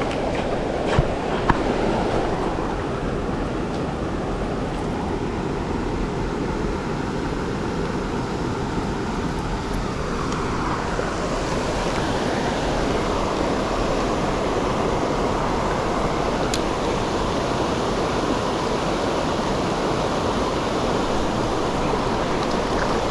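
Steady rush of fast-flowing creek water, with two short sharp clicks about a second in.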